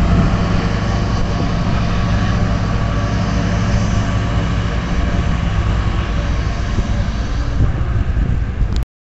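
Ford F-250 diesel pickup's engine running hard under heavy load as it tows a semi tractor on a chain, a steady loud drone that cuts off suddenly near the end.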